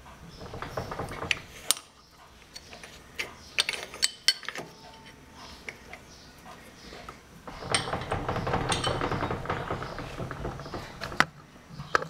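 Steel-on-steel clinks and taps from a chuck key and tools being worked at a lathe's four-jaw chuck while a steel rod is clamped and centred. There is a longer stretch of metallic rattling and scraping from about seven and a half to eleven seconds in, and a sharp clink just after eleven seconds.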